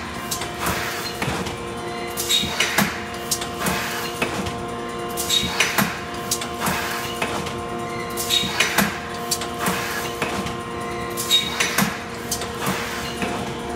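Thermoforming machine running in automatic cycle: a steady mechanical hum with a short cluster of clanks and air noise about every three seconds as the forming press closes and the sheet indexes.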